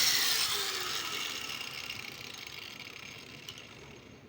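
A power tool's motor winding down after being switched off. Its hiss fades away over several seconds, with a faint hum falling in pitch in the first second.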